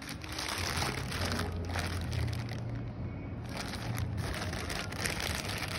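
Plastic courier mailer bag crinkling and rustling as it is handled, with a steady low hum underneath.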